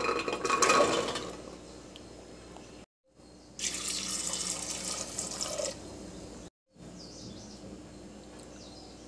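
Chickpeas tipped from a bowl clatter into a steel pressure cooker, then die down. After a cut, a stream of water pours into the cooker for about two seconds, splashing over the chickpeas.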